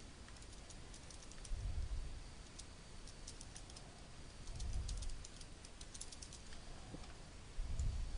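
Computer keyboard typing in quick runs of key clicks. Three dull low thumps, about three seconds apart, are the loudest moments.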